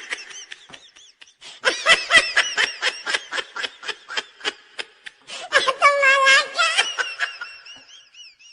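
Laughter sound effect: a run of rapid ha-ha pulses, then a held laugh about six seconds in, trailing off near the end.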